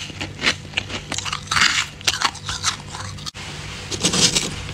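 A person biting and chewing chunks of freezer frost: a run of irregular crunches, the loudest just after four seconds in, over a steady low hum.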